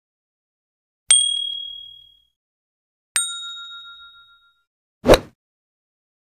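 Sound effects for a subscribe-button animation. About a second in there is a bright, high bell-like ding that rings out for about a second. About two seconds later comes a second ding with a lower and fuller chord of tones, and about five seconds in there is a short click.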